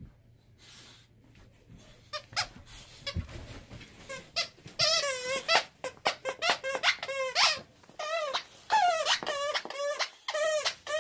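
Dog chewing a squeaky toy, its squeaker giving short squeaks. They start about two seconds in, come sparsely at first, then in quick runs through the second half.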